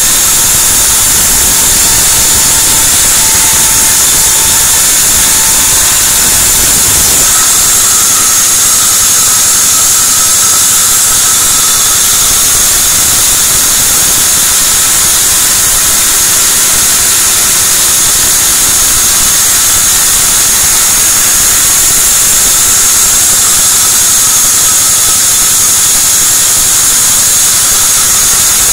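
Sawmill band saw running and ripping a white teak board lengthwise: a loud, steady machine noise with a strong high hiss from the blade in the wood. The low rumble drops away about seven seconds in while the high hiss carries on.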